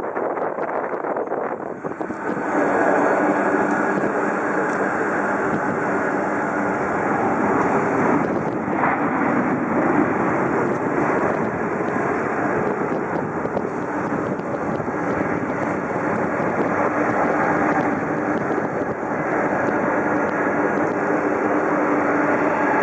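Airbus A380-841 jet engines (four Rolls-Royce Trent 970s) during touchdown and rollout on the runway. The engine noise jumps up about two seconds in and then stays loud and steady, with a steady hum running through it.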